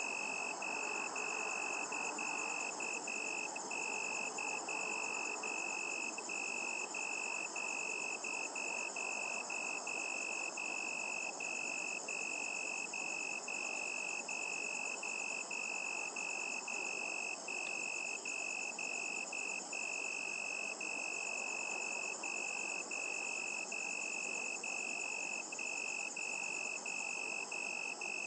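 Crickets calling in a steady night chorus: one high, even tone with brief regular breaks, over a faint even hiss.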